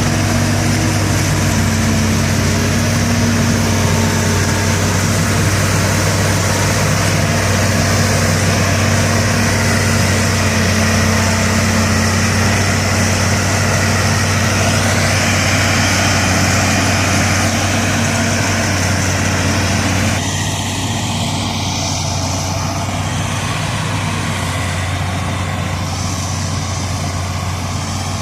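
Heavy diesel engine of corn-silage harvesting machinery running steadily, a constant low hum under a wide rushing noise. The level drops slightly about twenty seconds in.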